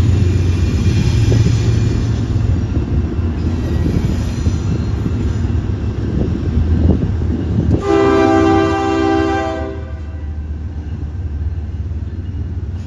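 Norfolk Southern diesel locomotives approaching under power, their engines a steady low drone. About eight seconds in, the horn sounds one blast of about two seconds, several tones at once.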